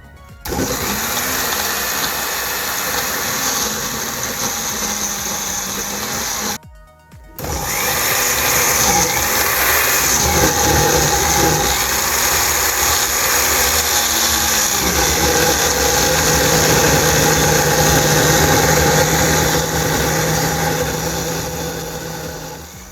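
Electric blender puréeing tomatoes, running in two stretches: about six seconds, a brief stop, then about fifteen seconds more. The motor's pitch wavers as the load shifts, then settles to a steady whir as the purée smooths out.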